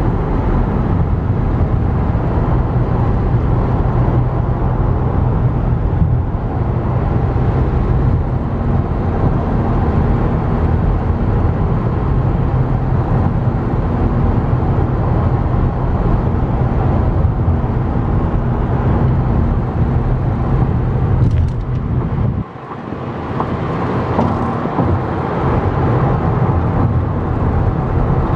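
Steady road noise inside a moving car's cabin at freeway speed: a deep rumble with a hiss of tyres and wind over it. About three-quarters of the way through, the deep rumble drops away suddenly and builds back over a few seconds.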